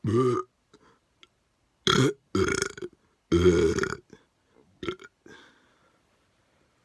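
A person burping deliberately, one loud burp after another: four in the first four seconds, the last the longest, then a short one near five seconds in.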